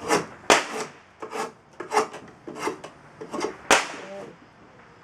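Drawknife shaving green black locust on a shave horse: a quick series of short scraping cuts, stopping about four seconds in.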